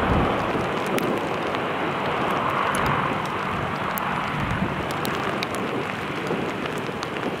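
Antonov An-22's four turboprop engines with contra-rotating propellers heard as it rolls along the runway just after landing: a loud, steady rushing noise without a clear pitch.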